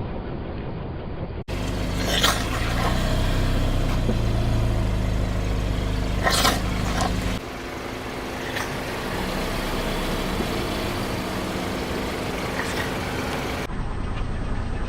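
A car's engine running slowly while its tyres roll over objects, with several short cracks and crunches as things break under the wheels. The sound changes abruptly a few times, as separate clips are cut together.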